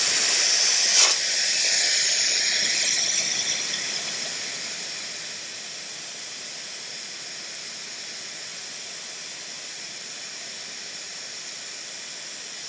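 Compressed air hissing out of four tires at once through the Thor's Lightning four-tire deflation system, letting them down from about 37.6 PSI. The hiss is loud at first and eases to a steady lower hiss after about five seconds, with a brief click about a second in.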